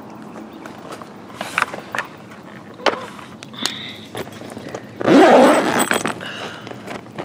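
Clear reinforced plastic cover of a small garden greenhouse crinkling and rustling as it is handled and pulled open, loudest from about five seconds in, after a few scattered clicks and light steps.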